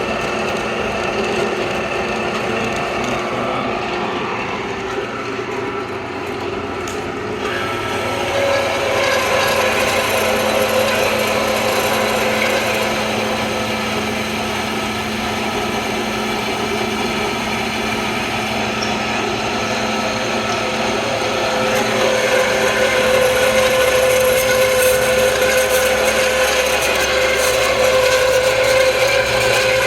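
Rockwell 7" x 10" horizontal bandsaw running steadily under its motor, with a steady hum. It grows louder about a quarter of the way in and again about two-thirds of the way through.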